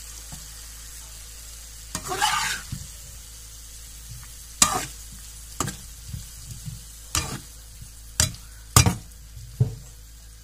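Vegetables sizzling in oil in a frying pan while a spatula stirs them, scraping across the pan about two seconds in and then knocking sharply against it several times in the second half.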